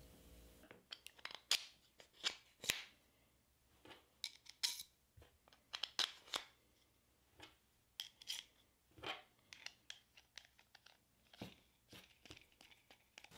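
Irregular light clicks and scrapes of small brass pen-kit parts and wood pen blanks being handled and slid onto a steel pen mandrel, with short pauses between them.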